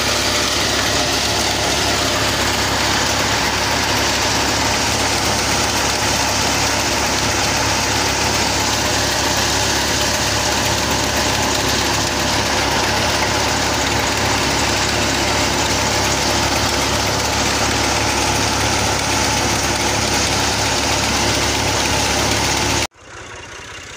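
Tractor-powered, belt-driven threshing machine running steadily under load as mustard stalks are fed in, with the tractor's engine droning underneath. The sound cuts off abruptly near the end.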